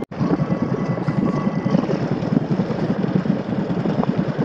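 Engine of a small open boat running steadily under way, a rapid low chugging, with wind and water noise.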